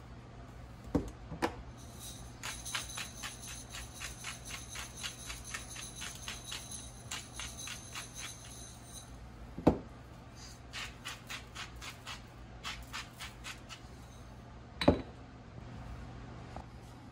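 A hand-twisted peppercorn grinder clicking at about three turns a second, in a long run and a shorter one later. A few sharp knocks of containers set down on a countertop, the loudest about halfway through and near the end.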